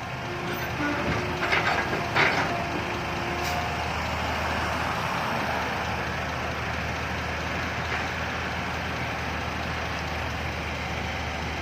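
Heavy diesel engine running steadily, with a few short clattering noises in the first couple of seconds.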